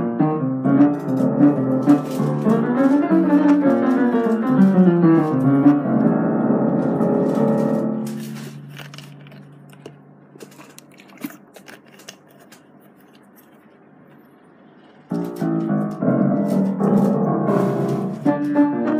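Background piano music that fades out about eight seconds in, leaving a quiet stretch with a few faint clicks; piano music starts again abruptly about fifteen seconds in.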